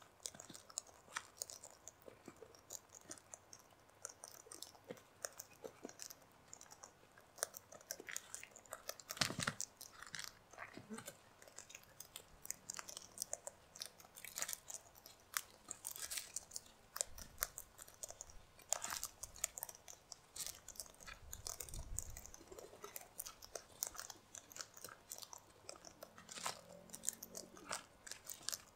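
Sulphur-crested cockatoos cracking seed in their beaks: a steady, irregular stream of sharp crunches and clicks.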